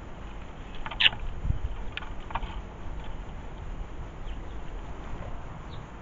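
Small tits feeding on a hanging coconut-shell feeder: a few sharp taps and scratches, the loudest about a second in, over a low rumble on the microphone, with faint short high chirps later on.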